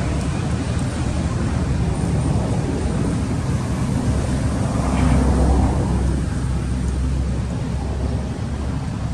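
Steady low outdoor rumble that swells briefly around five seconds in.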